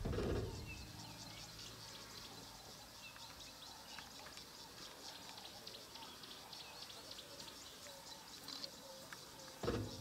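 Faint bush ambience of many small, high bird chirps with a few short call notes, plus a brief low bump near the end.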